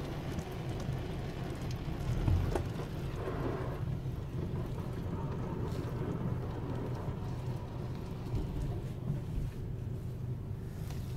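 A car's steady low engine and road hum heard from inside the cabin as it rolls slowly out of an automatic car wash. The body is still wet, and light ticks of water can be heard in the first few seconds.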